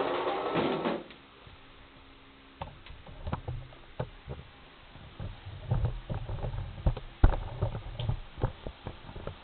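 A rustling noise for about the first second, then irregular knocks and low thumps from handling around the pinsetter, the loudest about seven seconds in.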